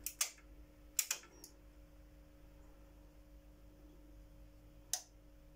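Relays in a Crown CTS8200 power amplifier clicking as it tries to power up: a few sharp clicks in the first second and a half, then another near the end, over a faint steady hum. The owner hears a big clunky relay with higher clicking and puts the amplifier's fault down to a relay.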